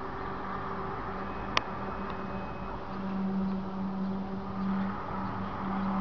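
A low, steady droning hum with a fainter higher overtone, swelling louder about three seconds in: the mysterious 'strange sound from the sky'. A single sharp click comes about one and a half seconds in.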